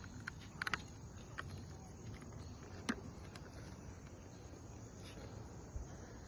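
Faint outdoor ambience with a low rumble and a few scattered sharp clicks and crackles: a small cluster under a second in and the loudest about three seconds in, then a dull thump near the end.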